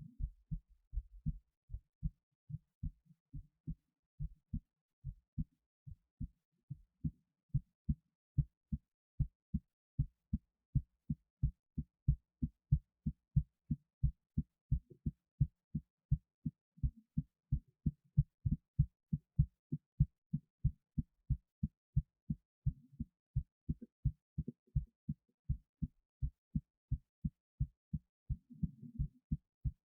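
A human heartbeat recorded at the chest: a steady, regular run of low thudding beats, faint for the first second or two and then strong. A brief rustle comes near the end.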